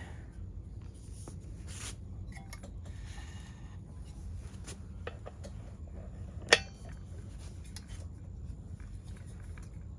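Quiet handling of metal tools on a workbench, with a few faint clicks and one sharp metallic clink about two-thirds of the way through.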